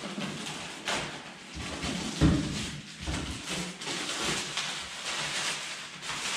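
Cardboard and plastic packaging rustling and crinkling as a boxed power inverter is unpacked by hand, with a dull thump about two seconds in.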